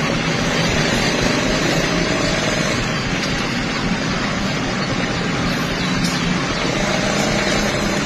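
Diesel-electric locomotive engine idling, a loud steady hum with an even low drone.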